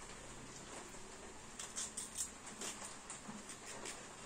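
Faint, scattered clicks and rustles of hands peeling and handling garlic cloves over a plate and small steel cup, mostly in the middle of the stretch.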